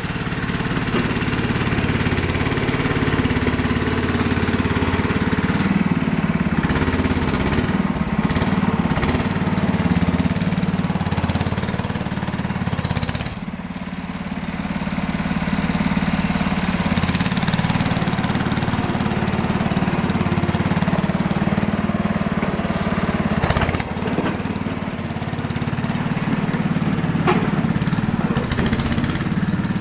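Sears Suburban 12 garden tractor's Tecumseh engine running steadily under load while the tractor pushes snow with its front blade, with a brief dip in level about 13 seconds in.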